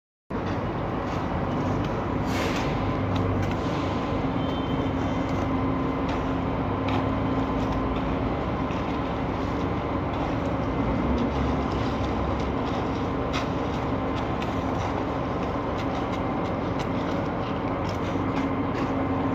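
Heavy diesel engine of a truck-mounted concrete pump running steadily, with a steady low hum and scattered clicks and knocks. It starts abruptly about a third of a second in.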